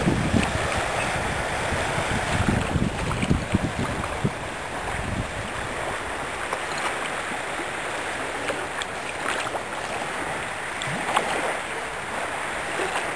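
Sea water washing and lapping along a rocky, sandy shore as a steady wash. Wind buffets the microphone with low rumbling gusts through the first few seconds, then eases.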